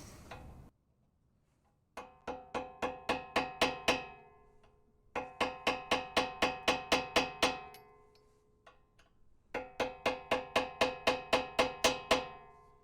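Hammer tapping a chisel to stake the axle nut into the spindle's notch, so the nut can't work loose on its own. The metal strikes come in three quick runs of about a dozen each, each run growing louder, with a ringing tone under the blows.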